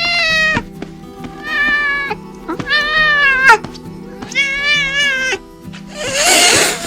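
Cat meowing four times in drawn-out calls about a second apart, then a harsher, raspy cry near the end. Steady background music plays underneath.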